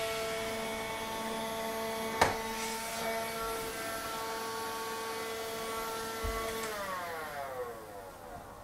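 Electrolux Well S7 cordless window vacuum running with a steady whine, with one sharp click about two seconds in. Near the end its motor winds down and the whine falls in pitch.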